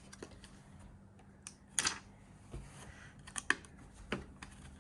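A few scattered light plastic clicks and taps from the Roomba robot vacuum's parts being pulled and fitted by hand. The loudest click comes about two seconds in.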